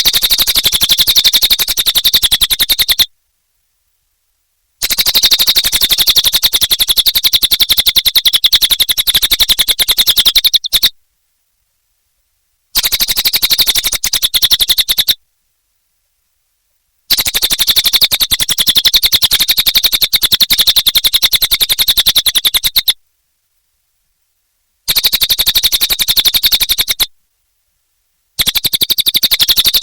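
Cililin bird singing a very fast, high-pitched trill in long bursts of a few seconds each. The song breaks off abruptly into total silence five times, for about two seconds each time.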